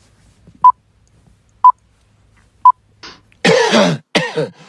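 Three short, identical electronic beeps, evenly spaced about a second apart. About three and a half seconds in, a person coughs twice, loudly.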